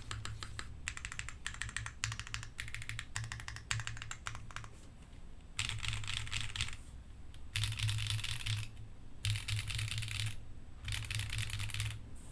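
Typing on a QK60 WKL gasket-mounted mechanical keyboard with an aluminium plate, factory-lubed Neon switches, GMK keycaps and no foam. Rapid keystrokes run for about five seconds, then come four bursts of very fast key presses, each about a second long, with short pauses between them.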